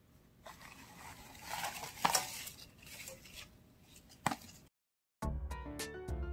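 Soft rustling and squishing of thin raw pork belly slices being handled over bean sprouts and sliced vegetables in a pan, with a sharp click about two seconds in and another just past four seconds. After a brief moment of silence, background music with plucked notes starts about five seconds in.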